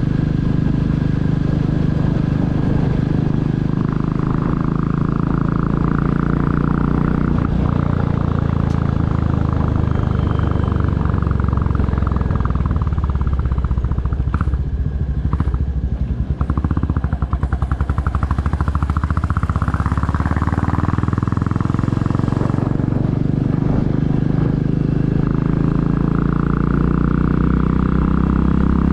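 2022 Royal Enfield Classic 350's single-cylinder engine running on the move. About halfway through it drops to a slow, pulsing beat for a few seconds, then picks up again.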